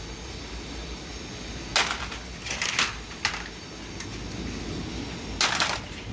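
Toy gun firing: a few sharp snapping shots about two to three and a half seconds in, then a slightly longer one near the end, over a low steady background hum.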